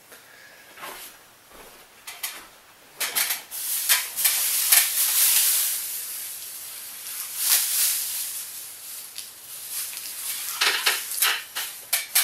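Thin plastic sheeting rustling and crinkling as it is unfolded and pressed onto double-stick tape along the top of a wall. Only a few faint rustles at first, then loud crinkling in waves from about three seconds in, easing off and crackling again near the end.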